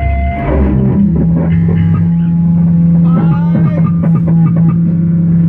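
Guitar music: plucked guitar notes, some bent in pitch, over a single low bass note held steadily from about a second in.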